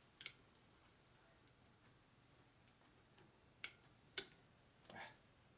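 Sharp metallic clicks of a snap ring being handled and pressed into its groove in a motorcycle fork leg: one click near the start, two more close together about three and a half seconds in, then a softer scrape.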